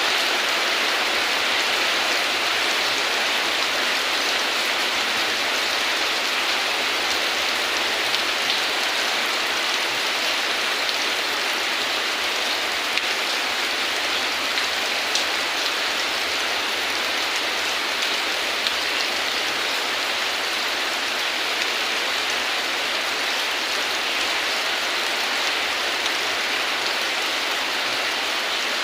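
Heavy rain falling steadily, a dense even hiss of drops with a few sharper drop impacts here and there.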